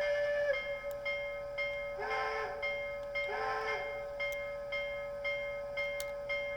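DCC sound decoder in a Bachmann Plus 4-8-4 Niagara model steam locomotive: a held tone cuts off about half a second in, then steam chuffs about twice a second, with two short whistle toots about two and three seconds in, the two-blast signal for moving forward.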